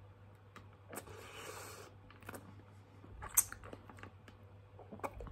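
Quiet mouth sounds from sucking a hard spicy lollipop: faint scattered clicks of the candy against the teeth, a breathy rush about a second in, and one sharper click about three and a half seconds in.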